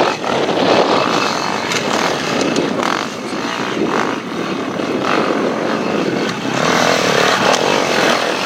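Enduro motorcycle engine revving in repeated bursts, loud and uneven.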